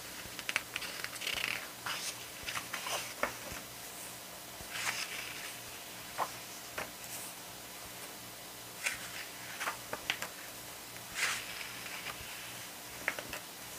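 Glossy photobook pages being turned and handled: scattered short paper rustles and light taps at irregular intervals.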